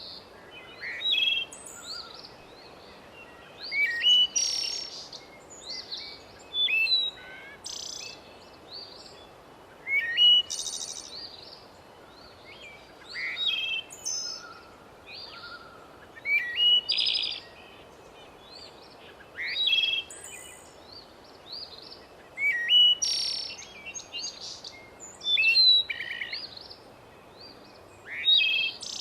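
Songbirds singing: short phrases of chirps and trills that recur every two to three seconds over a faint, steady background hiss.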